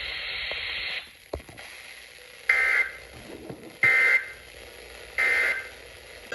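Emergency Alert System end-of-message signal: three short bursts of digital data warble, about 1.3 seconds apart, closing the broadcast alert. Before them, a second of steady radio static hiss cuts off.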